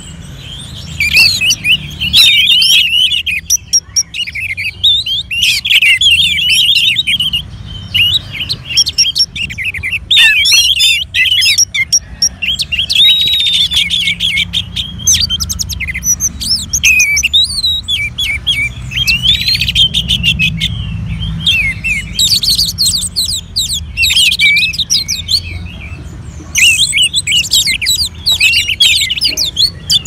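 Orange-headed thrush singing: rapid, varied warbling and chirping phrases broken by short pauses, over a steady low hum.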